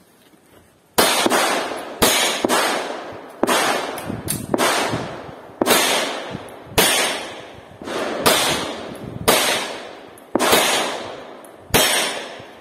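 About a dozen 9mm pistol shots, fired singly roughly a second apart, starting about a second in; each sharp crack trails off in echo.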